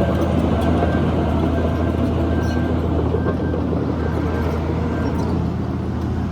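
Heavy earthmoving machinery's diesel engine running steadily, a deep continuous drone.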